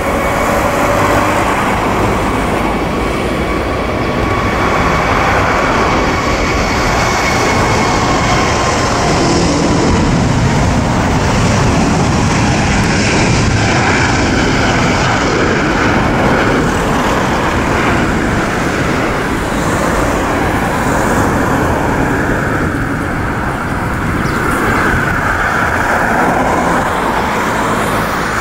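Airbus A380-841's four Rolls-Royce Trent 970 turbofans at takeoff thrust: a loud, steady jet roar through the takeoff roll and climb-out. A thin high fan whine rides on top of it for roughly the first ten seconds, then fades.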